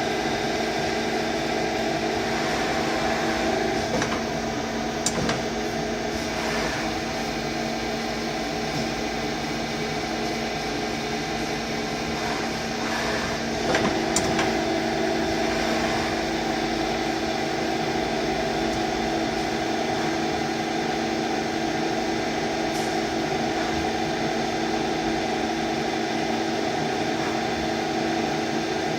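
XYZ Mini Turn 190 CNC lathe running, a steady machine hum with several held tones. A few brief clicks and knocks come about four to five seconds in and again near the middle.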